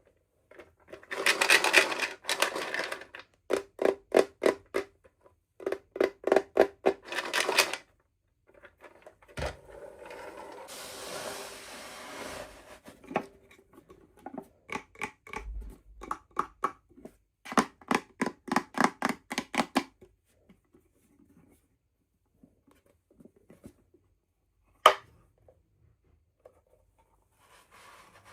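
Toy packaging being handled and opened by hand, in several runs of quick scraping, crinkling strokes. A tearing hiss comes in the middle and a single sharp click near the end.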